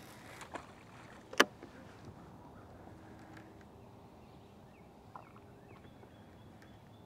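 Faint sound of lake water against a boat and light wind, broken by one sharp click about a second and a half in and a few smaller ticks later.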